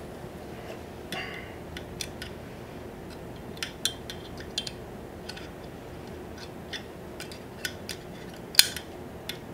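Small, sharp metal clicks and scrapes as a tool works the wire retaining clip into its groove in the outer tube of a Ducati Scrambler's upside-down front fork, with a louder click near the end.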